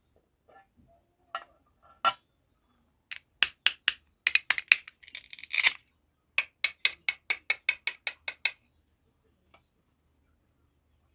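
A run of sharp clicks and clinks, small hard pieces striking a hard container one after another, about three a second, with a short rattle in the middle.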